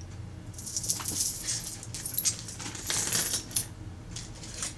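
Small metal craft charms clinking and jingling against each other as they are tipped back into their clear plastic bag, with the cellophane packaging crinkling.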